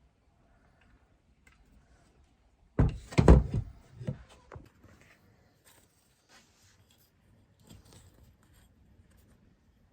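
A quick cluster of heavy thunks and knocks about three seconds in, then faint scattered clicks and rustling, from parts and tools being handled inside the vehicle's rear during the seatbelt fitting.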